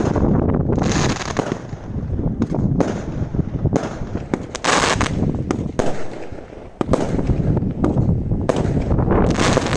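Consumer firework display: a rapid string of shots and bangs from firework cakes, with a dense cluster of reports about five seconds in and another near the end, and a short lull between.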